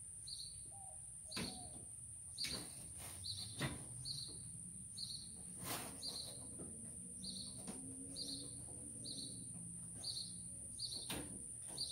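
A bird chirping over and over, short high chirps coming every half second to a second. A few sharp metal clicks come from a pressure washer's brass quick-connect fittings being handled and fitted.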